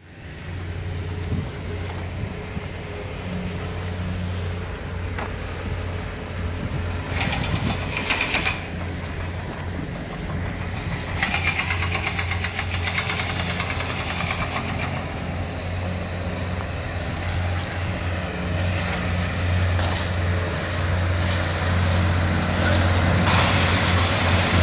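An engine runs steadily with a low drone. Louder stretches of higher-pitched mechanical noise come in about seven seconds in, again from about eleven to fifteen seconds, and near the end.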